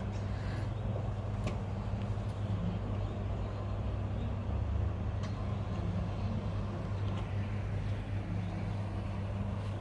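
A steady low mechanical hum, with a faint haze of background noise and a few faint clicks.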